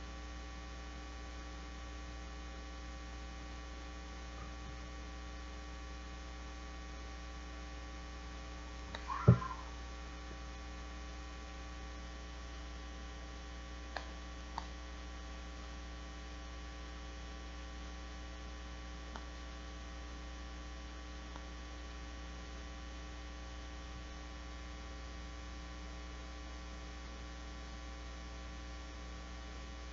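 Steady electrical mains hum, with a brief louder sound about nine seconds in and a couple of faint clicks a few seconds later.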